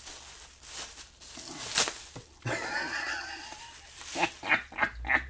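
Rustling and clicking of packaging as an item is unwrapped by hand, then a drawn-out wavering voice-like sound for about a second and a run of short laughs near the end.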